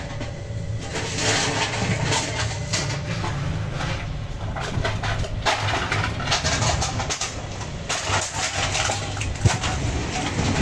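Single-phase capacitor motor driving an XD-020 rotary vane vacuum pump, running with a steady low hum, with irregular rustling and scraping over it.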